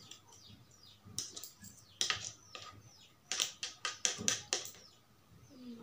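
Eating sounds from a meal of noodles: a string of sharp clicks and taps, with a quick run of about six clicks a little past the middle.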